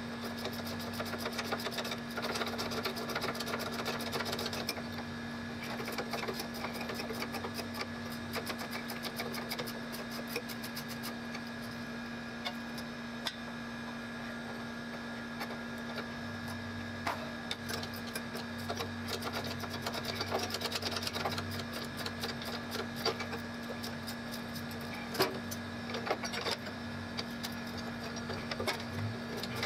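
Hand ratchet wrench clicking rapidly in runs as it turns bolts on a golf cart's rear brake assembly, with a few sharper metal clicks. A steady hum runs underneath.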